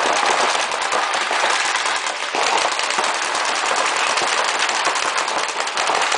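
Several paintball markers firing Reball reusable rubber balls in rapid strings, the shots overlapping into a dense, unbroken rattle.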